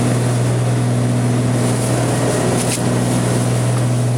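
Steady drone of a small Cessna's piston engine and propeller, heard from inside the cabin in cruise, with a constant low hum.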